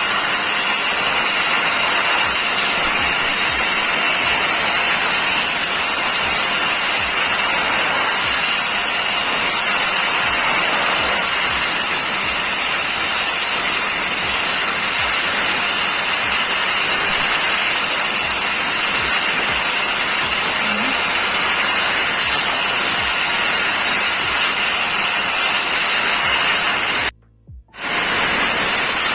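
Angle grinder running steadily with its disc grinding a steel machete blade to sharpen it: a continuous grinding noise with a high whine. The sound cuts out completely for about half a second near the end.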